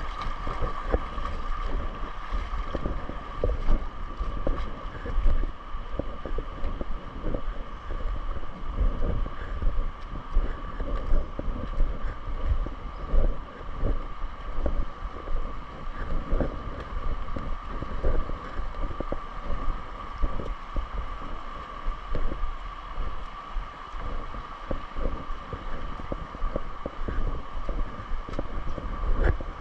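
Wind buffeting the microphone in irregular gusts, over the steady rush of the Virgin River's flowing water.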